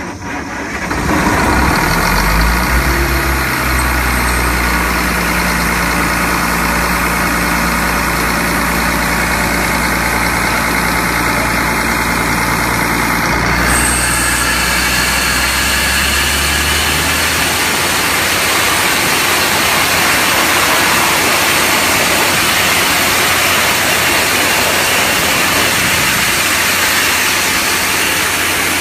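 Engine of an industrial air compressor, revving up over the first couple of seconds and then running steadily. From about halfway a loud, steady hiss of rushing air rises over the engine note and continues.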